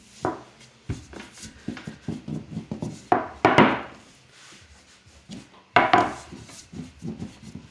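Hands rubbing and turning a sheet of fresh pasta dough on a wooden pasta board, with a run of light taps and rubbing strokes. A long wooden rolling pin is knocked down onto the board and dough, with louder knocks near the middle and about six seconds in.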